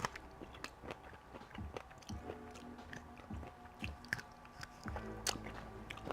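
A person chewing and biting food close to the microphone, with scattered wet mouth clicks and small crunches.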